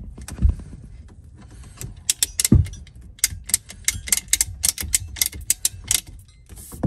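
A PEX crimp tool being worked onto the crimp ring of a new stop valve on a PEX water line: a couple of dull knocks, then a quick run of sharp metallic clicks, about four a second, from about two seconds in until near the end.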